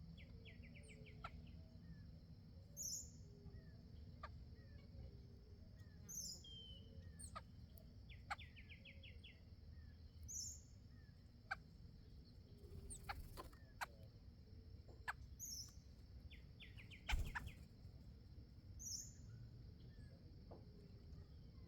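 Faint backyard songbird calls: a short high call note repeated about every three seconds and a quick rattling trill three times, with scattered light clicks and one sharper knock late on.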